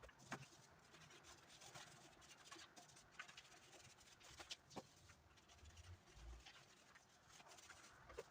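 Near silence, with a few faint scattered clicks and scratches and a brief low rumble about six seconds in.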